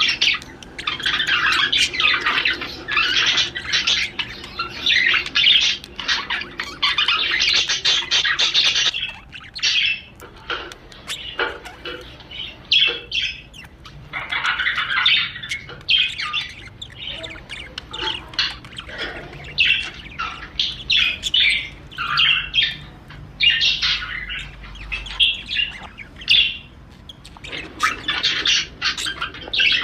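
Male budgerigar warbling and chattering, a fast jumble of squawks, chirps and clicks. It is almost unbroken for about the first nine seconds, then comes in shorter bursts. This is the courtship warble of a male in breeding condition.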